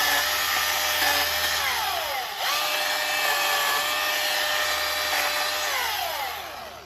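Milwaukee M18 FUEL cordless chainsaw's brushless electric motor and chain running at a steady whine. About two seconds in, the trigger is let off and the pitch falls, then it is squeezed again and speeds straight back up. Near the end it is released and the motor winds down to a stop.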